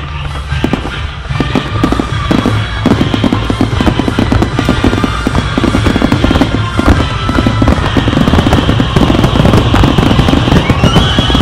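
Aerial firework shells bursting in quick succession with crackle, over music, building to a denser and louder barrage toward the end.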